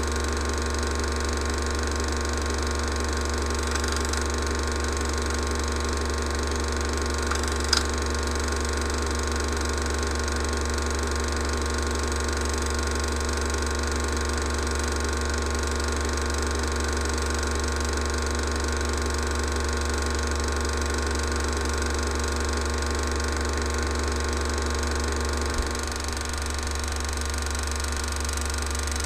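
16mm cine film projector running: a steady mechanical whirr over a low hum, with a brief click about eight seconds in and another near the end.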